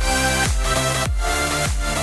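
Electronic dance-style background music with a steady kick-drum beat, about one beat every 0.6 seconds, under held synth chords.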